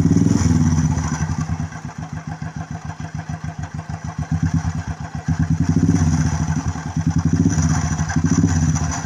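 Royal Enfield Thunderbird single-cylinder engine running with its clutch cover off and clutch chain removed, the throttle opened several times. It makes a noise that sounds as if the engine bearing has failed, which the mechanic traces to the starter one-way clutch.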